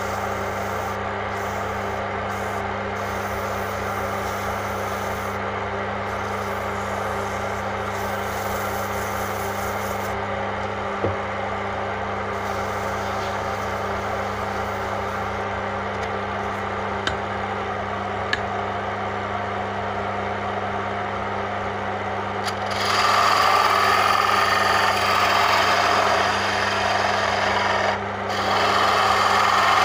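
Wood lathe's electric motor running with a steady hum while a hand chisel scrapes and cuts the spinning wooden chess-piece blank. The cutting gets much louder about three-quarters of the way in, breaks off for a moment, then resumes.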